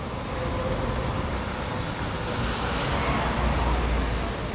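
Street traffic noise: a car drives past close by, the noise swelling with a low rumble about three seconds in, while a tram moves off down the street.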